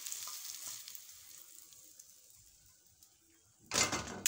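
Hot oil sizzling under a freshly fried egg, fading away as the egg is slid out of the frying pan onto a plate. A little before the end comes a short, loud clatter.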